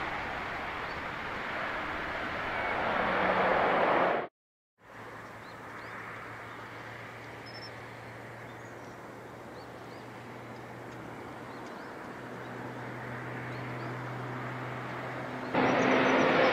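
Twin turboprop engines and propellers of a Bombardier Dash 8 Q400 airliner: a loud propeller roar during the landing rollout that builds for about four seconds and then cuts off abruptly. After a brief silence comes a quieter steady engine hum with a low held tone that slowly grows louder as the aircraft runs on the runway. Near the end it jumps to a loud drone as the aircraft climbs away overhead.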